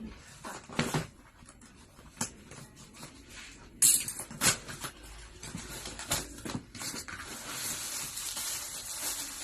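Packaging being handled during an unboxing: scattered taps, knocks and rustles, with a sharper knock about four seconds in, then a couple of seconds of steady crinkling near the end.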